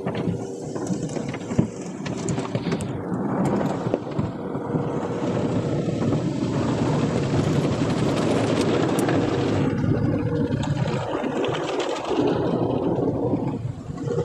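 Automatic tunnel car wash heard from inside the car's cabin: spinning cloth brushes slap and scrub over the windshield and body, then foam and water are sprayed against the glass. The noise is densest in the middle, with a steady hum underneath.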